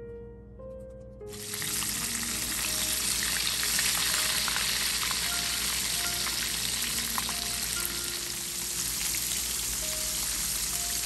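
Battered chicken pieces deep-frying in a pan of hot oil: a loud, steady sizzle that starts abruptly about a second in. Soft background music plays underneath.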